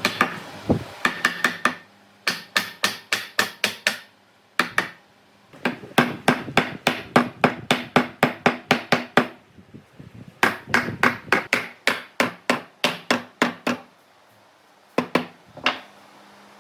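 Rapid hammering: quick, even strikes at about five a second, in runs of two to four seconds with short pauses between them, and a few last strikes near the end.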